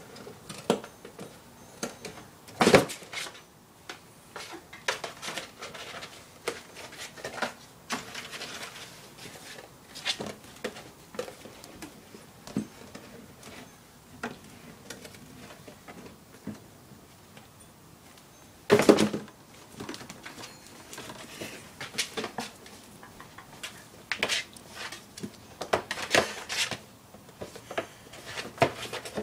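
Cardboard cereal box being batted and pushed around on a tile floor by kittens: irregular light taps, rustles and scuffs, with two louder knocks, one about three seconds in and one about two-thirds of the way through.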